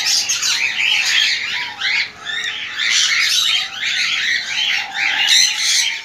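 Many small cage birds chirping and squawking over one another in a loud, continuous chatter.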